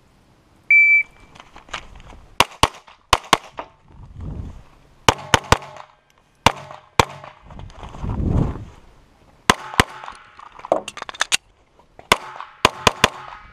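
A shot timer gives one short electronic beep just under a second in. A Springfield XDm 5.25" 9mm pistol then fires several strings of shots, mostly in quick pairs, with short gaps between the strings.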